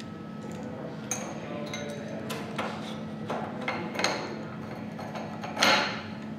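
Light metal clicks and clinks of a SuterClutch motorcycle clutch being handled, a few scattered taps as the pressure plate is lined up over the hub with a pick tool. Near the end there is one louder, scraping knock as the pressure plate is set down onto the clutch.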